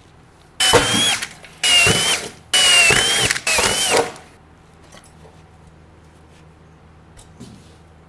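Electric drill boring through the sheet-metal panel of an air-conditioner outdoor unit: four short runs, each under a second, with the motor whine rising slightly before it stops. A few light clicks of handling follow.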